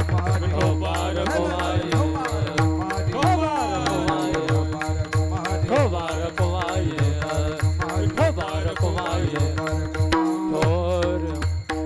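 Kirtan music: a drum beats a fast, even rhythm under small hand cymbals clashing on each beat, with a steady held drone and voices or a melody sliding up and down in pitch.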